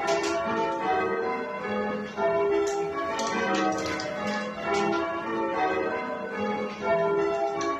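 Church bells being rung in change ringing: a continuous run of bell strokes, each one ringing on into the next.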